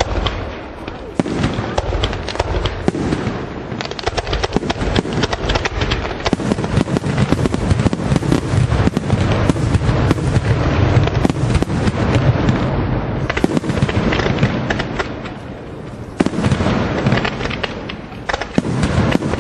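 Fireworks display: aerial shells bursting and low-fired comets going up in rapid, overlapping volleys of bangs and crackle, easing briefly about three-quarters of the way through before picking up again.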